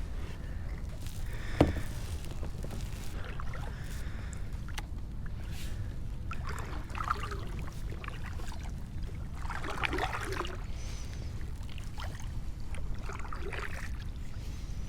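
Kayak on the water: a few soft splashing swishes in the water, about every three seconds in the second half, over a steady low rumble, with one sharp knock against the hull about one and a half seconds in.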